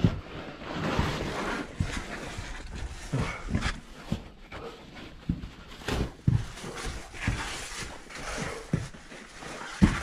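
A person breathing hard close to the microphone, with irregular scuffs and knocks from effortful movement.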